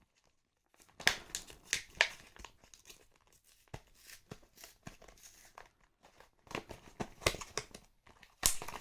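Glued knife packaging being forced and torn open by hand, with irregular crinkling, tearing and sharp clicks starting about a second in and growing busier near the end.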